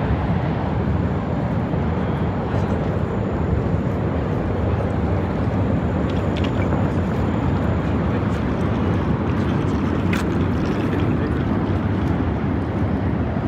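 Steady low rumble of outdoor city ambience, with a couple of brief clicks about six and ten seconds in.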